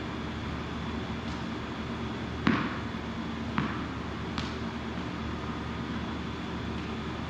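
A ball hitting the rubber floor a few times, each a sharp knock, the loudest about two and a half seconds in, over a steady hum of room ventilation.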